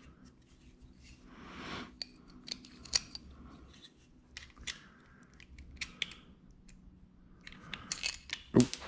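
Light metallic clicks and rattles from a hand rivnut setting tool as a rivnut is handled and threaded onto its mandrel, with a louder cluster of clicks and a sharp knock near the end.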